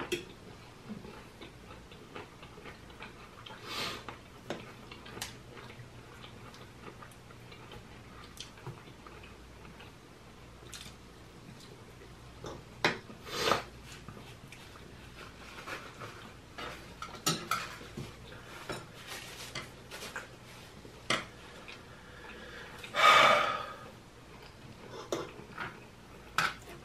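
Cutlery clicking and scraping against serving trays and plates while eating, in scattered short clicks. Near the end there is one louder, noisy sound lasting about a second.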